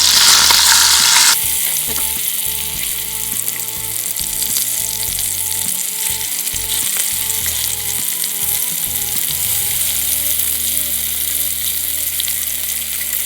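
Masala-coated barramundi (kodua) fish sizzling as it shallow-fries in oil in a pan, just turned over onto its second side. The sizzle is louder for about the first second, then drops suddenly to a steady sizzle.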